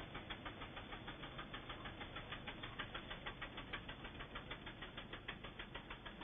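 Riding lawn mower engine running steadily while mowing, heard faintly as a rapid, even pulse of several beats a second.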